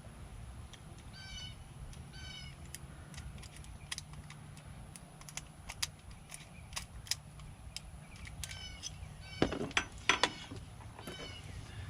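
Metal clicks and knocks of a door lock's parts being worked by hand, with a louder cluster of knocks near the end. A bird calls in short bursts four times.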